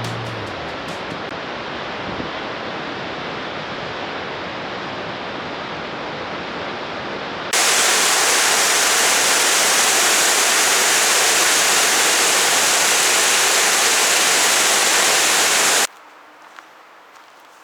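Steady rushing roar of a waterfall. About seven seconds in it jumps suddenly louder and fuller, and near the end it cuts off abruptly to a faint background.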